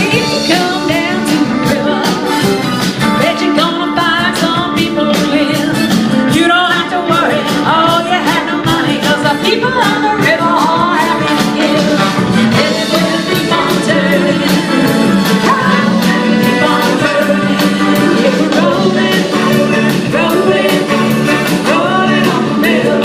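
Live rock band playing with a singer; the drums keep a steady beat.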